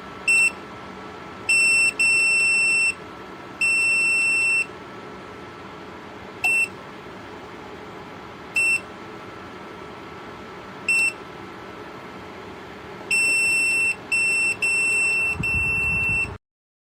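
JIBUFI 1500W PTC space heater running with a steady fan hum while its control panel beeps in a high single tone: several short beeps and some longer ones lasting about a second, bunched near the start and the end. The sound cuts off suddenly near the end.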